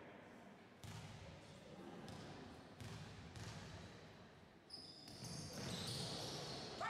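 Faint basketball game sounds in a gym: a basketball bouncing on the hardwood court a few times, roughly two seconds apart, and a short high squeak about two-thirds of the way in.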